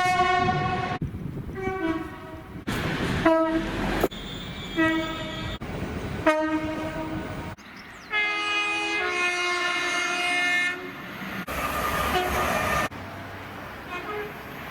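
A quick montage of British train horns: a string of short blasts and two-tone calls, with one long chord-like blast about eight seconds in. Each clip cuts sharply into the next, with passing-train rail noise between the horns.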